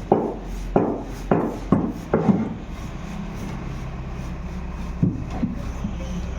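Sharp knocks or taps, as of a tool striking during a water pump repair: about five in the first two seconds, roughly half a second apart, then two more near the end, over a steady low hum.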